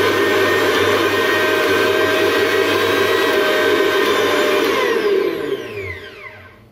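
Flipkart SmartBuy 500 W mixer grinder's motor running at speed with the small jar fitted, a loud steady whine. About five seconds in it is switched off and winds down, its whine falling in pitch as it fades.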